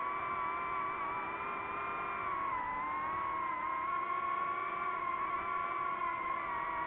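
Drone propellers and motors whining steadily in flight, several close pitches that dip slightly together about two and a half seconds in.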